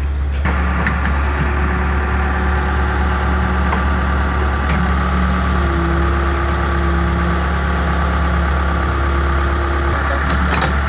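An engine idling steadily with an even, low drone.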